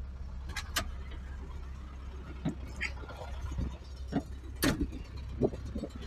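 Low, steady engine drone heard from inside a vehicle's cab while driving, with a handful of short knocks and rattles from the cab, the loudest a little before the end.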